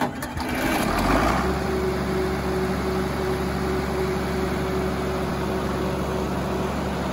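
John Deere 4430 tractor's six-cylinder turbocharged diesel engine running at a steady idle. It is rougher for the first second or so, then settles into an even run.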